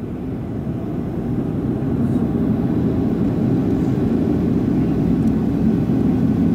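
Cabin noise of a Boeing 737-800 in flight, heard from a window seat over the wing: a steady low rumble and rush from its CFM56-7B turbofans and the airflow. It grows louder over the first couple of seconds, then holds steady.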